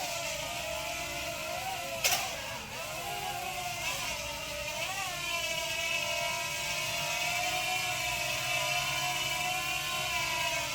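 JJRC JJ850 quadcopter's motors and propellers whining in flight, the pitch swelling and dipping with throttle changes. A single sharp knock about two seconds in.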